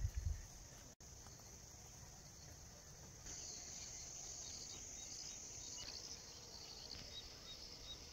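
Faint, steady high-pitched trilling of insects, swelling louder for a few seconds in the middle, with a faint regular chirp repeating about three times a second in the second half.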